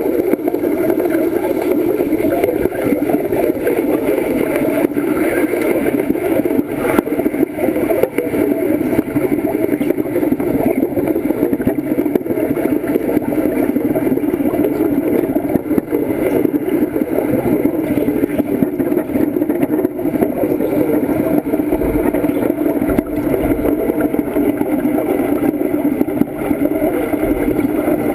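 Underwater arc welding: a steady, dense bubbling crackle that runs without a break.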